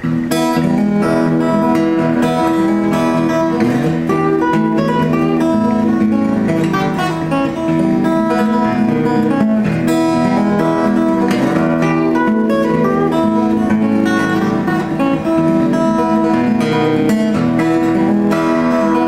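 1932 Martin OM-18 steel-string acoustic guitar played solo, with strummed chords and picked notes ringing on in an echoey room.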